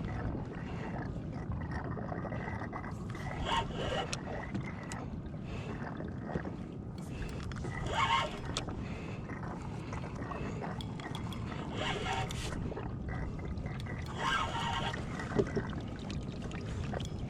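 Seawater sloshing against a kayak hull, with wind on the microphone and a few short scraping noises about four seconds apart.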